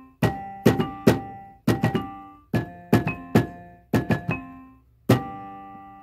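Keyboard music with a piano sound: notes and chords are struck in small clusters, each dying away, and a final chord about five seconds in rings out and fades.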